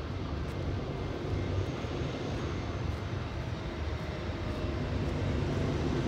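CN freight train's diesel locomotives approaching, a steady low rumble that grows slowly louder.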